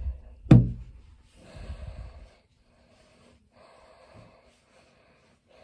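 A single thump about half a second in, then a person breathing close to the microphone in slow, separate breaths while hiding.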